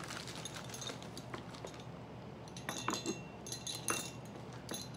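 Light clicks and clinks of novelty shower curtain hooks with metal rings being handled and knocked together, busiest in the second half.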